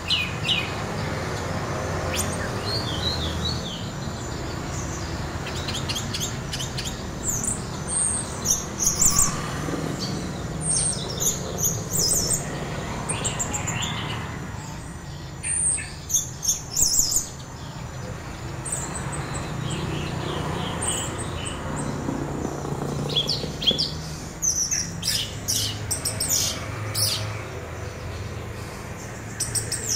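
Orange-headed thrush singing: clusters of quick, very high chirps and trills with short pauses between them, over a steady low background rumble.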